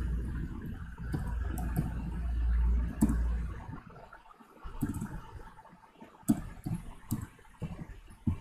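Keyboard keys being typed, a scattering of short sharp clicks, over a low rumble that fades out about three and a half seconds in.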